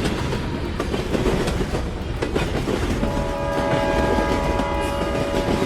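Train running along the rails with a steady rumble and wheel clatter, then a train horn sounding about halfway through as a steady chord of several tones held to the end.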